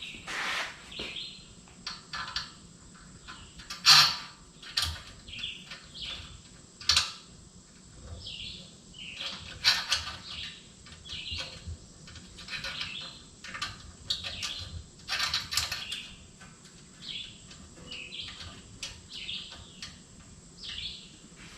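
Birds chirping again and again, with scattered sharp clicks and knocks from parts and tools being handled. The loudest knock comes about four seconds in.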